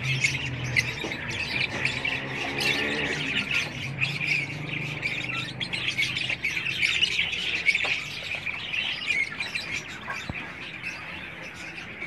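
A crowd of caged small parrots (budgerigars and lovebirds) chirping and squawking together in a constant, dense chatter.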